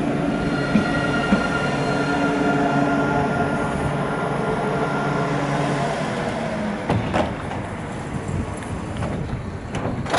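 Lyon T3 tram running on its rails, its electric drive whining in several steady tones over the rolling rumble. About six and a half seconds in the whine drops away, leaving a quieter rumble with scattered clicks and knocks from the wheels and track.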